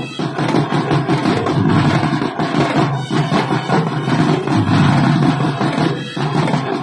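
Drumline playing marching drums with sticks in unison, a dense, fast run of strokes with brief breaks about every three seconds.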